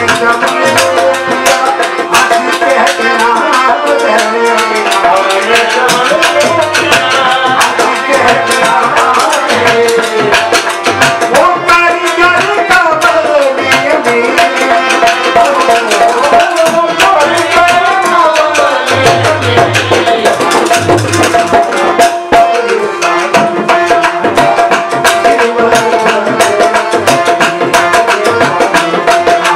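Rajasthani folk music: a male voice sings a slow, bending melody over a steady harmonium drone, with a dholak drum and rattling hand percussion keeping time.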